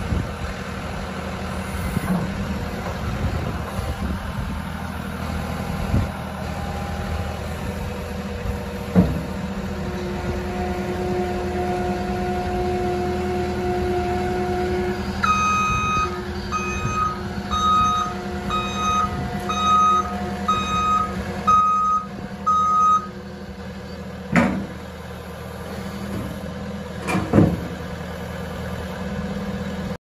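Wacker Neuson SW21 skid steer's 74 hp Kohler diesel running steadily. Past the middle, its reversing alarm beeps about once a second for several seconds. A few sharp knocks come near the end.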